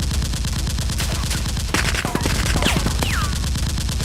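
Rapid automatic gunfire, a fast unbroken run of shots. A few falling whistles cut through it around two and three seconds in.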